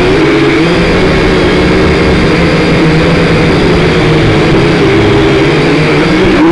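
Toy quadcopter's electric motors and propellers whining loudly and steadily, the pitch wavering up and down as the throttle changes.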